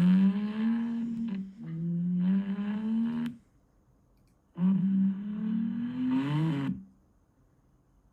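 Three low, drawn-out pitched calls, each held for a second or two with a slight rise in pitch and cut off abruptly; the second call ends about three and a half seconds in and the third starts about a second later.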